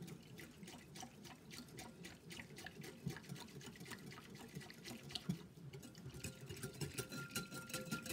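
Wire whisk stirring hot hōjicha tea with gelatin in a glass bowl: liquid swishing, with many quick light clicks of the wires against the glass. The gelatin and sugar are being whisked until they dissolve.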